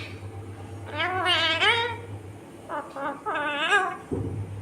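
Indian ringneck parakeet vocalising: two drawn-out, wavering, warbling calls, the first about a second in and the second, broken into several parts, near three seconds.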